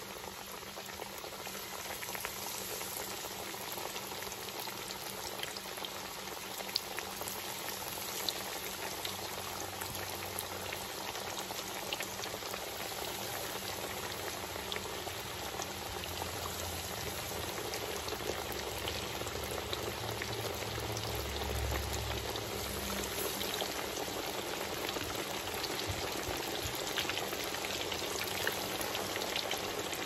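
Cornmeal-and-mustard-battered fish frying in hot oil in a skillet: a steady sizzle and crackle, with a few sharp pops from the oil.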